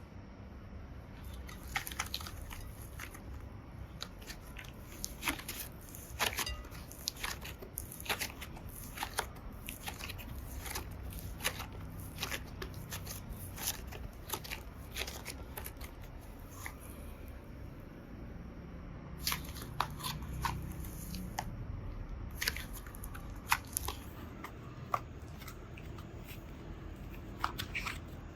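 Slime being handled and squished by hand, giving many short crackling clicks and pops, with a sparser stretch about two-thirds of the way through.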